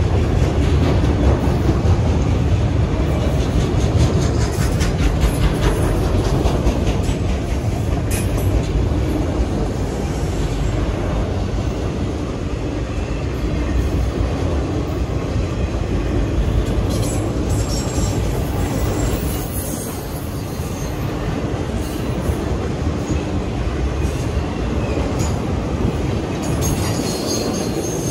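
Autorack freight cars rolling steadily past at a grade crossing: a continuous rumble and clatter of steel wheels on the rails, with brief high wheel squeals now and then.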